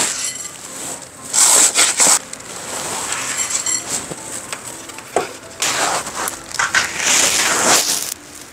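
Dry cat kibble poured from a cup into a ceramic bowl, rattling against the bowl in several short bursts.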